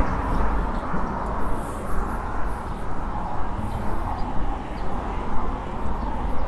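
City street traffic noise: a steady rumble and hum of passing vehicles.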